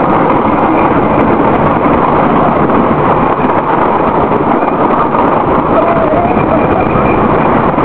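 Wooden roller coaster train running at speed along its track: a steady loud rush of wheel noise on the wooden track mixed with wind buffeting the microphone.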